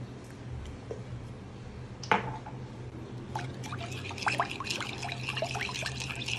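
Metal spoon stirring a thin, watery marinade in a bowl: one sharp knock about two seconds in, then from about three seconds in a steady run of quick clinks of the spoon against the bowl with liquid sloshing.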